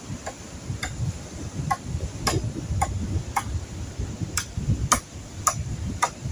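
Hammer driving nails into the timber of a roof frame: about ten sharp strikes, roughly two a second, with a couple of short breaks.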